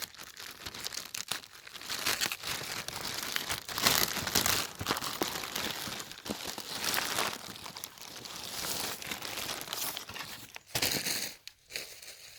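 Packaging crinkling and rustling as a delivered parcel is opened by hand, loudest about four seconds in and dying away near the end.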